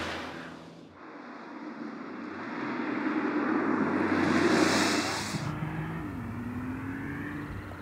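2026 Porsche 911 Turbo S (992.2) twin-turbo hybrid flat-six on track: a quick, close pass-by at the start, then the car's engine and tyre noise building as it comes through a corner, loudest about four to five seconds in. After that a steadier, more distant engine note, with a drop in pitch about six seconds in.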